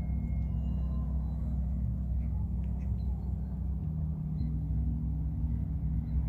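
Low, steady sustained drone from sound-healing instruments, a deep resonating tone with many overtones, with a few faint short high tones above it.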